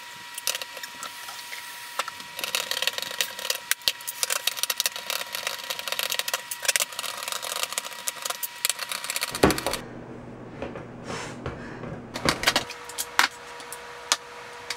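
Hand-held crank can opener cutting around the lids of tin cans: a fast run of small metal clicks and rattles, thinning out to a few scattered clicks after about nine seconds.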